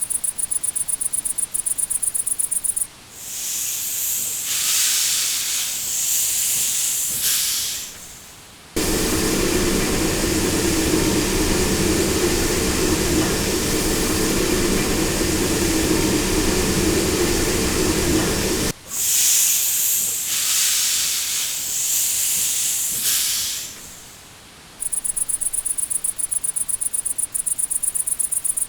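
Crickets chirping, then a steam locomotive letting off steam in hissing blasts. A long, steady steam whistle of several held tones follows for about ten seconds, starting and stopping abruptly, then more steam hiss before the crickets return.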